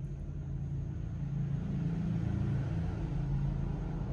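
A small electric motor running with a steady low rumble that swells in the middle.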